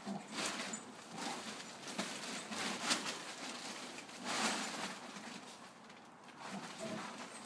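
Blue plastic tarpaulin rustling and crinkling in repeated bursts as two Labradors play and shift about beneath it.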